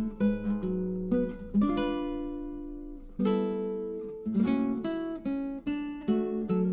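Background music: acoustic guitar plucking and strumming chords that ring out and fade between strokes.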